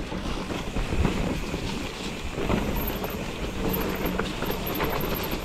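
Mountain bike riding down a dirt forest trail: tyres rolling over dirt and roots, with the bike rattling and knocking over the bumps and wind buffeting the microphone.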